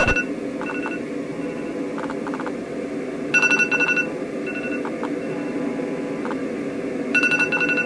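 iPhone alarm going off: an electronic ringtone of short repeating beeps, with a fuller cluster of beeps about every four seconds.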